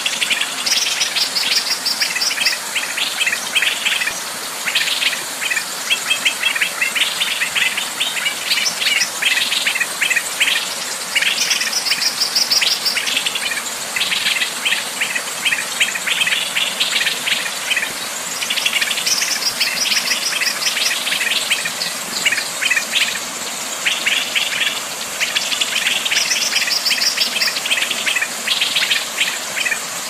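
Small songbirds chirping and trilling in dense, rapid runs over the steady rush of flowing water.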